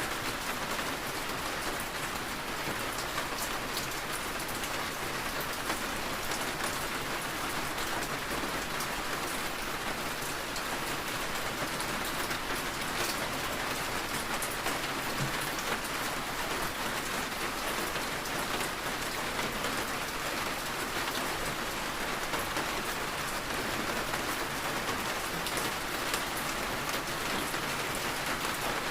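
Steady rain falling: an even, continuous hiss with a fine patter of drops.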